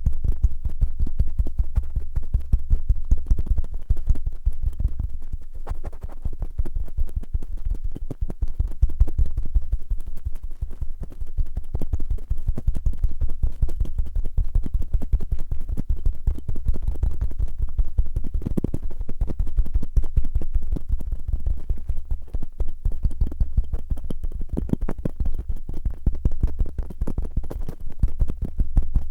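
Cotton swabs rubbed and scratched quickly and roughly against the microphone: a dense, fast run of scratchy strokes over a deep rumble.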